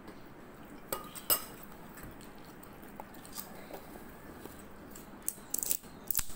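A metal spoon clinking and scraping against a jar while scooping out paste, with a few sharp clinks, the loudest about a second in. Near the end come quick clicks as the jar's screw lid is twisted shut.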